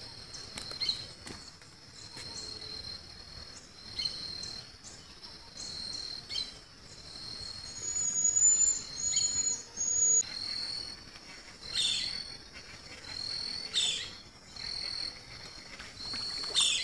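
Insects chirring steadily at a high pitch in the background. Over them, a bird gives a few short high whistles about halfway through, followed by several sharp chirps.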